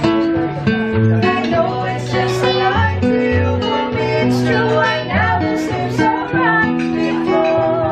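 A live acoustic guitar accompanies a man and a woman singing a song together.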